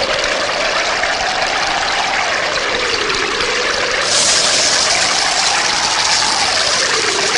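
Rushing, surging water: a loud, steady hiss with a slow wavering whoosh through it. About four seconds in it turns brighter and more hissing.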